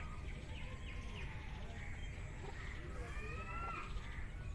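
Faint bird calls in the background, with a longer, rising call about three seconds in.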